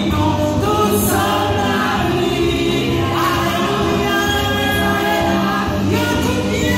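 Church congregation singing a lively gospel song together, many voices in chorus over a steady musical backing.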